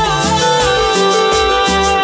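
Dance music played loud over a sonidero sound system: a steady beat with bass notes about twice a second, quick high percussion ticks and a held melody line over them.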